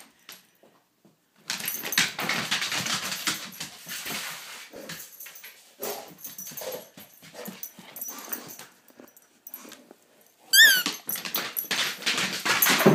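A dog running and scrambling on a hardwood floor after a tennis ball, its claws scrabbling and clattering in uneven spells. About ten and a half seconds in comes one short, high, loud yelp.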